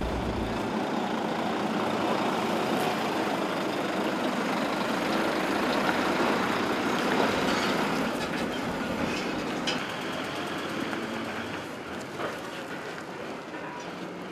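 Heavy cargo trucks running, a steady engine and road noise that grows quieter after about eight seconds, with a few light clicks later on.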